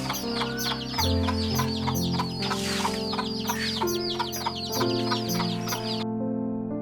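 Birds chirping: many rapid, high, downward-sliding calls, about four or five a second, that stop near the end, over background music with sustained notes.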